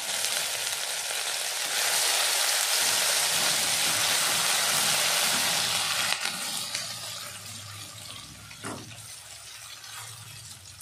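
Cumin seeds, ginger and green chillies sizzling in hot oil in a kadhai while being stirred with a silicone spatula. The sizzle is loud for the first six seconds or so, then dies down steadily.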